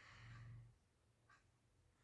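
Near silence in the pause between a sleeper's snores. A faint low sound fades out within the first half-second, and a faint short tick comes a little past the middle.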